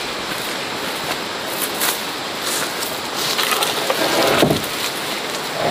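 Leaves and brush rustling and twigs crackling as someone pushes through dense undergrowth on foot. The rustling grows louder and rougher from about three to four and a half seconds in, and again near the end.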